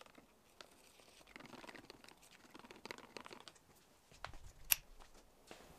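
Faint scraping of a wooden stir stick around the inside of a plastic tub as blue pigment is mixed into epoxy resin, in short spells. A little before the end comes a sharp click, the loudest sound.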